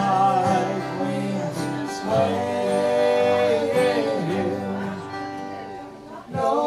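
Live acoustic country/bluegrass duet: two acoustic guitars strummed under a man's sung melody, the notes long-held and sliding. The music dips briefly about six seconds in before the next sung line comes in.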